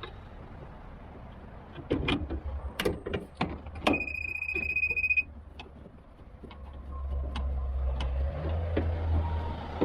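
A series of sharp clicks and knocks from a car door and its lock mechanism being worked on, then a steady high beep lasting just over a second, then a low rumble that builds near the end.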